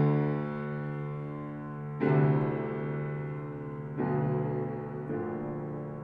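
Solo grand piano playing slow, sustained chords, a new chord struck about every two seconds and each left ringing and fading; the chord about two seconds in is the loudest.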